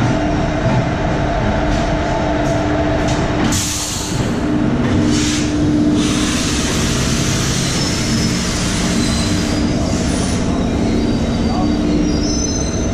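WAM4 electric locomotive hauling a passenger train slowly past along the platform: a steady electric hum over the rumble of wheels rolling on the rails, with a brief hiss about four seconds in.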